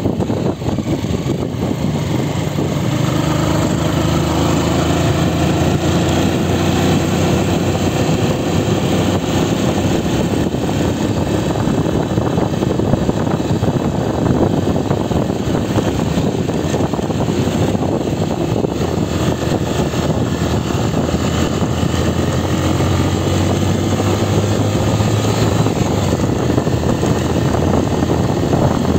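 Honda CG Titan 125 KSE motorcycle's single-cylinder four-stroke engine running steadily under way, its pitch rising and falling a little with the throttle, over a steady rush of wind and road noise.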